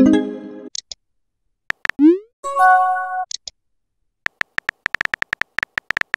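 Texting-app sound effects: a short chime as a message bubble comes in, a few keyboard taps, a quick rising pop as a message is sent and a brief chord tone, then a fast run of keyboard tap clicks as a new message is typed.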